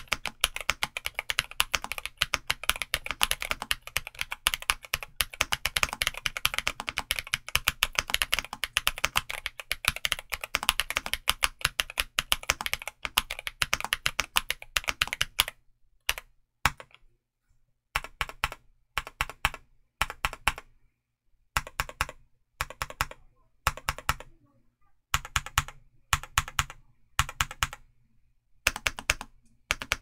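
Redragon K673 Pro mechanical keyboard with Tecsee Blue Balloon switches and doubleshot ABS keycaps, modded with PE foam, PET film and tape, being typed on. It is fast, continuous typing for about the first half, then slower typing in short bursts of a few keystrokes with brief pauses between them.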